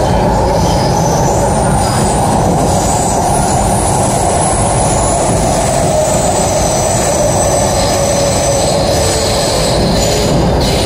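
MTR C-Train metro car running at speed, heard from inside the carriage: a steady rumble of wheels on rail with thin, high wheel squeal coming and going over it.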